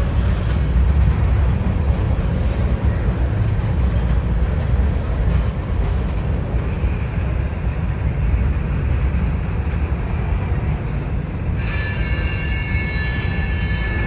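Covered hopper cars of a freight sand train rolling past, a steady low rumble of steel wheels on rail. About eleven seconds in, a high-pitched wheel squeal starts and holds.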